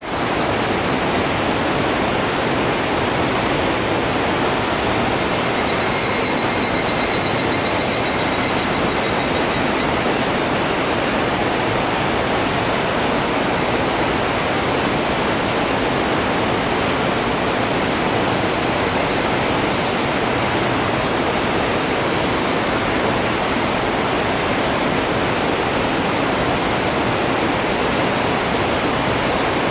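Waterfall rushing in a loud, steady roar of falling water. A high, pulsing call sounds over it for a few seconds, from about six to ten seconds in.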